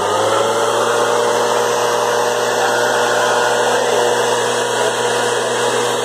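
Two-stroke gas-powered backpack leaf blower running loudly at a steady high speed, its engine tone and fan rush holding level after being throttled up.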